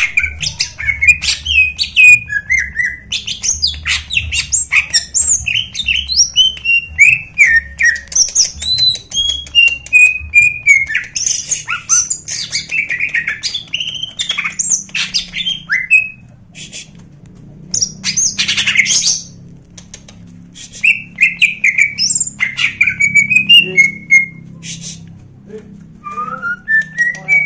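Male greater green leafbird (cucak ijo) singing a fast, varied song of quick chirps, whistles and rising and falling slides, mixed with rough, harsh notes. The song breaks off briefly past the middle, then comes back with a short harsh rasping burst before the whistled phrases resume.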